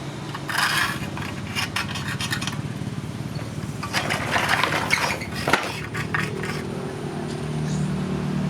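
Bouts of metal scraping and clattering over a steady low motor hum.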